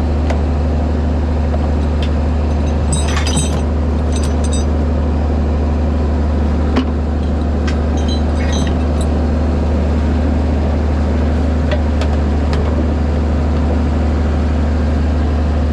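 Truck engine idling steadily, with a few light metallic clinks about three, four and eight seconds in.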